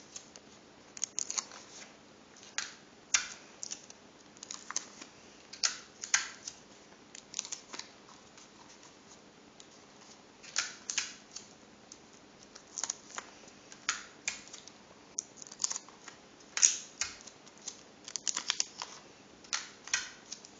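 Clear sticky tape and folded paper being handled as a paper slide is taped down onto a paper pistol: short, irregular crackles and taps, sometimes several in quick succession, with brief pauses between them.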